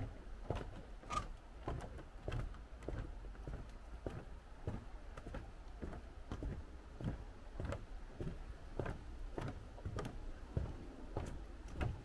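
Footsteps on the planks of a wooden boardwalk, an even walking pace of about two steps a second.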